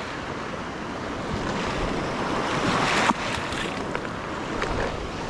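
Small sea waves washing in over a rocky shore right at the water's edge, the wash swelling to its loudest about three seconds in and then dropping off suddenly.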